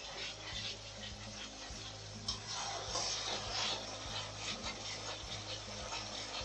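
Spatula scraping round a kadai, stirring ginger-garlic-onion paste frying in oil, in a run of uneven rasping strokes.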